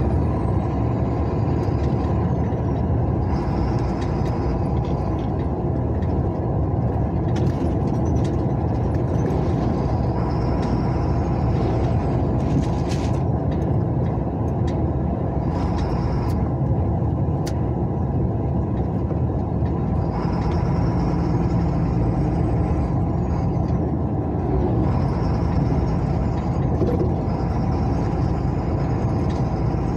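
Steady engine and tyre rumble of a car driving on a highway, heard from inside the cabin, with a few short clicks and several brief higher hisses over it.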